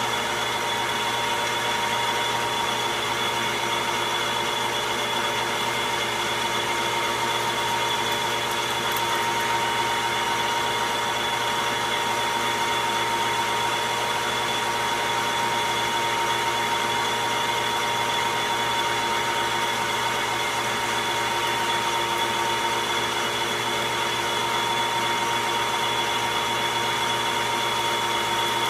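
Logan metal lathe running steadily under a roughing cut on the nut's outside diameter: a constant machine whine with a steady high tone over a hiss, unchanging throughout.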